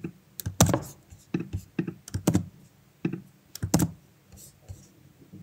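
Computer keyboard and mouse clicking in irregular single clicks as text is selected, copied and pasted.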